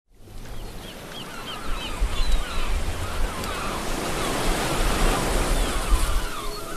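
Ocean surf washing, fading in from silence, with birds chirping over it throughout.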